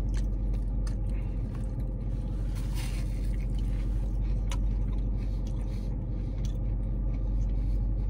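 Steady low hum of a car running while parked, heard from inside the cabin, with faint crunching as a fried seitan chicken finger is chewed.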